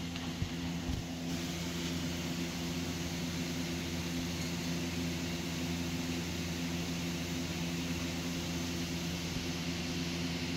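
A steady low hum with even hiss, like a machine or fan running, with two faint clicks about half a second and a second in.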